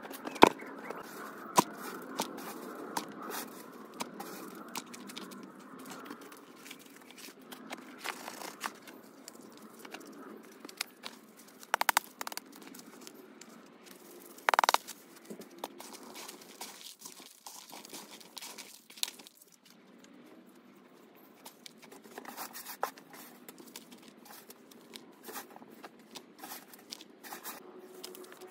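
Compost being scooped, dropped and mixed by gloved hands in a flexible plastic tub, with fertiliser granules poured in. It comes as irregular rustles, scrapes and crinkles with scattered sharp knocks, and one short louder rush of pouring about halfway through.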